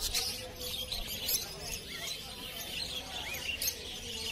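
A flock of caged budgerigars chattering: a dense, unbroken stream of high chirps and warbles from many birds at once.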